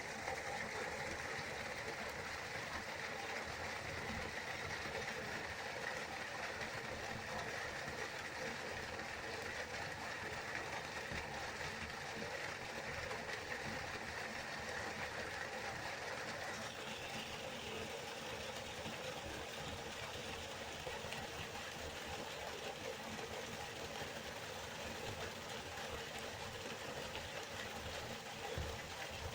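River water running and rushing steadily. Its tone shifts slightly a little over halfway through, as the higher hiss eases.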